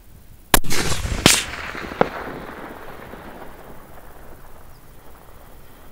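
A single shot from a Remington 700 VLS bolt-action rifle in .308 Winchester about half a second in. A second loud crack follows under a second later and a smaller sharp click about two seconds in, and the sound then dies away over the next second.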